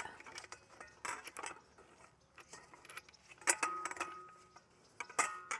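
Light metallic clinks and knocks from handling the saw and its metal parts, with a short ringing note about three and a half seconds in and a few sharper clicks near the end.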